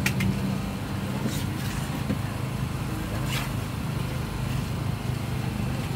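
A motor running steadily with a low hum, with a few brief scrapes over it.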